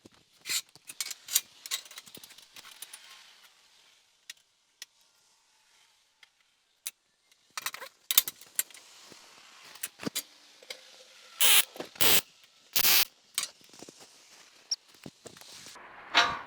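Steel bumper parts clinking and knocking as they are handled and set in place, then a few short, loud bursts in quick succession about two-thirds of the way through: tack welds fixing the second D-ring mount to the steel bumper.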